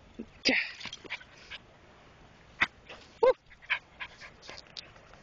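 Keeshond puppy giving a brief whimper about three seconds in, amid scattered light clicks and scuffles of play.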